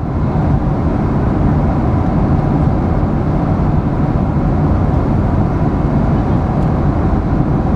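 Airliner cabin noise: a loud, steady drone of engines and rushing air, heaviest in the low end, fading in at the very start and then holding even.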